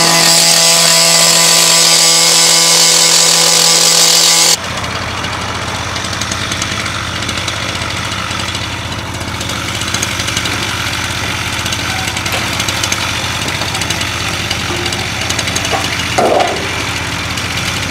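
Gas-powered cut-off saw running at full speed, its abrasive wheel cutting through a steel light pole: a loud, steady whine with a strong hiss that stops abruptly about four and a half seconds in. After that comes a quieter, steady low engine hum with road noise, and a short clank a little after sixteen seconds.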